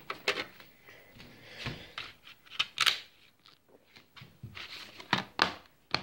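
Handling of DVD discs and plastic DVD cases: a series of irregular clicks, taps and short rustles as a disc is lifted from a DVD player's tray and put into its case and the cases are moved about on a table.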